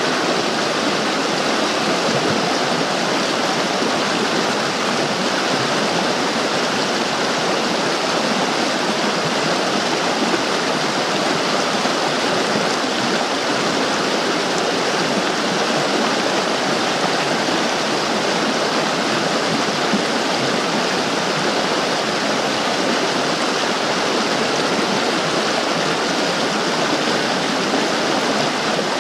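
Mountain creek rushing steadily over rocks in a small rapid, a loud, even rush of water.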